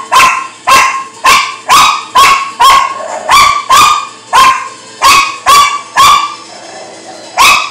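Small dog barking excitedly: about a dozen short, sharp, high-pitched barks, roughly two a second, with a pause of about a second near the end.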